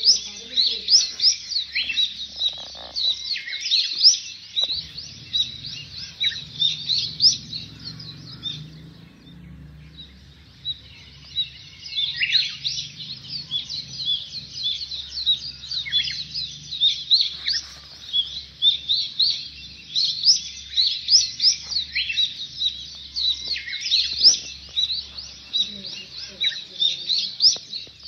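A dense chorus of small birds chirping rapidly, many short high chirps overlapping one another, with a brief lull about nine seconds in.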